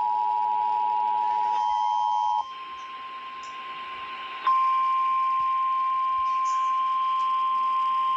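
Emergency Alert System attention signal, a steady two-tone beep just under 1 kHz, which stops about two and a half seconds in. After a quieter gap of about two seconds, a single steady NOAA Weather Radio 1050 Hz warning alarm tone cuts in loudly and holds.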